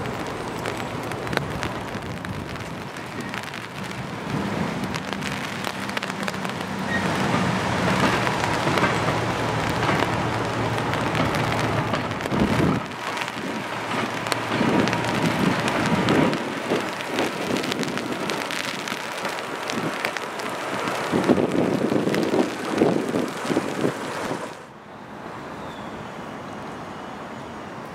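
Diesel locomotive running under steady rain as it hauls a coach past: first a low engine note, then irregular clattering of wheels over the track. The sound drops suddenly about three seconds before the end, leaving quieter rain and wind.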